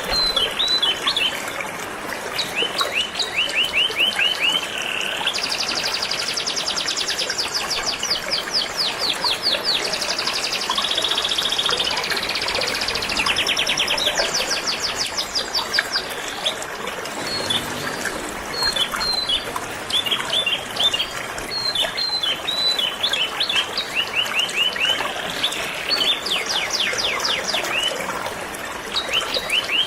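Canary singing in runs of rapid trills and chirps over the steady rush of flowing river water.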